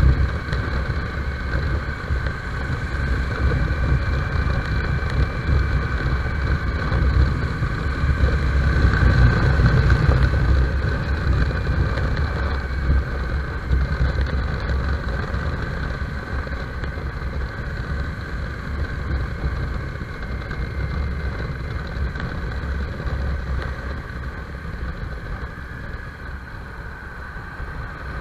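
Motorcycle engine running as the bike rides along, with wind rushing over the microphone. The sound grows louder about a third of the way in, then gradually quietens toward the end.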